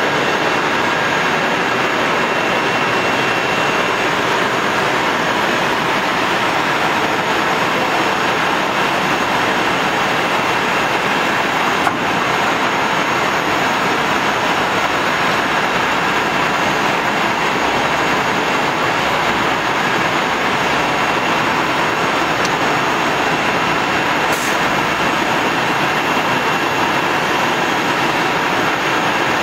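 Steady running noise of a CNC router working through an automatic tool change, with one short click about twelve seconds in.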